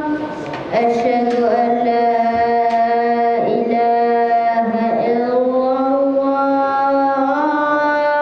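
A boy's voice chanting Quran recitation into a microphone, holding long, steady melodic notes. There is a short breath about half a second in, and the pitch slides between notes twice.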